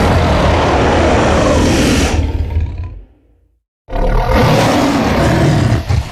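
Designed Acrocanthosaurus roar sound effect, layered from film creature sounds and big cat roars. One long, loud roar fades out about two to three seconds in. After a brief gap a second roar starts about four seconds in and drops quieter near the end.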